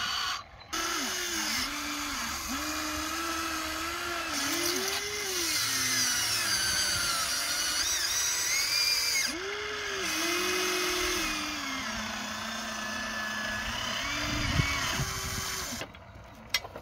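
Electric motors of a Huina radio-controlled toy excavator whining, the pitch gliding up and down again and again as the boom, arm and bucket move through the dirt. The whine stops about a second before the end.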